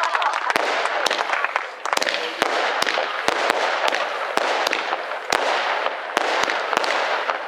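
Fireworks going off: a dense, continuous crackle with sharp bangs two or three times a second.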